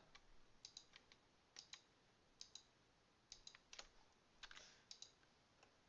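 Faint clicks of a computer mouse and keyboard while vertices are being selected and deleted, about a dozen sharp clicks, many in quick pairs, spread across a few seconds.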